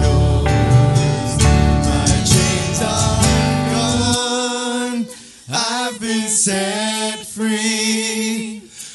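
Worship band and singers performing a gospel-style praise song. About four seconds in, the bass and drums drop out, leaving long held sung notes over light accompaniment.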